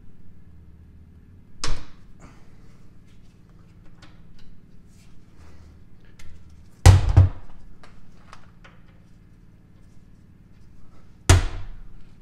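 Hand tools knocking and clicking while the engine oil drain bolt is loosened: three sharp knocks, about two, seven and eleven seconds in, the middle one the loudest, with scattered light clicks between.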